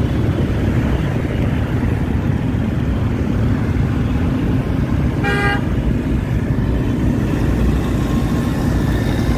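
Steady low rumble of motor scooters riding in dense traffic, heard from a moving motorbike. A vehicle horn toots once, briefly, about five seconds in.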